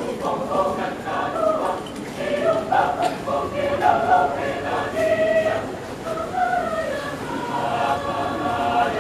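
Mixed choir of men's and women's voices singing together in parts, with phrases rising and falling and some notes held.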